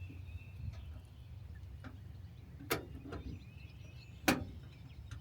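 A few sharp plastic clicks as a new door lock rod clip is worked onto the lock rod and into the lock mechanism inside a 1979 Dodge D-150's door, the two loudest about a second and a half apart, over a low steady rumble.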